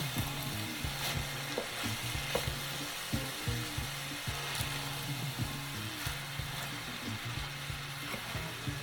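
Cabbage and mixed vegetables sizzling in a hot pan as they are stir-fried, with frequent short knocks and scrapes of the stirring utensil against the pan.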